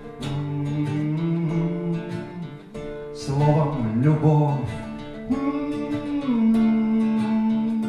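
A man singing a slow bard song to his own acoustic guitar, strumming and drawing out long held notes.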